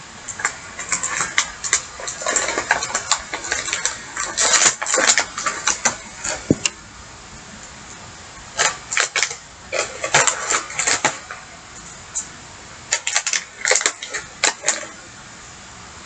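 Clear plastic packaging and tape crinkling and crackling as the action figure's weapon accessories are worked free, in three spells of handling with short pauses between.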